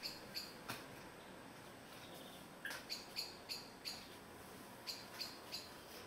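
Spotted flycatcher calling: short, thin, high notes repeated about three a second in runs, with a gap of about two seconds after the first few.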